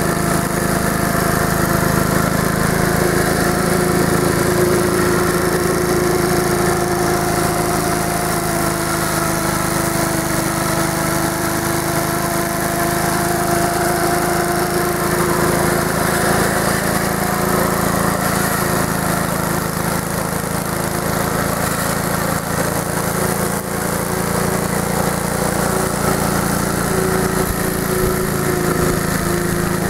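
The Clinton single-cylinder engine of a 1952 AirCaps Sit'n Cut riding lawnmower running steadily with its throttle open while mowing grass.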